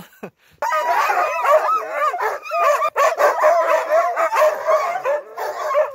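Several harnessed sled dogs yelping, barking and whining over one another in a continuous chorus, excited to start pulling. It starts suddenly about half a second in.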